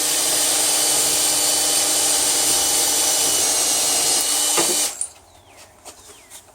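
Small electric mini lathe running steadily at speed with a steady motor whine, spinning a wooden dowel while it is sanded down to size. It switches off about five seconds in.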